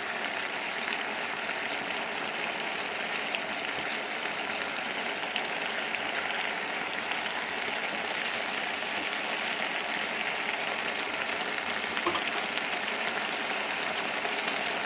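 Thick mustard-paste fish and eggplant curry bubbling and sizzling steadily in a non-stick frying pan as it cooks down.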